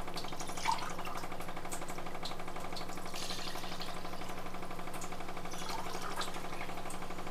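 Water poured from a steel tumbler into an aluminium pressure cooker of rice and chicken, splashing into the liquid in a few separate pours as water is added for cooking biryani rice. A steady electric hum runs underneath.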